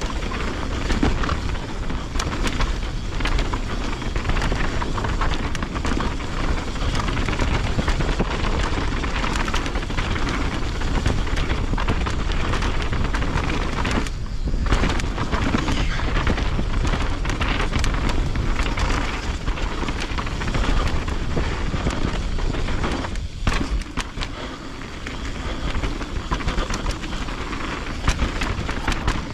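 Mountain bike ridden fast down a dirt trail: a steady wind rumble on the microphone over the rattle and clatter of tyres and bike on rough ground, with many sharp knocks. It eases off briefly twice, about halfway through and again about two-thirds in.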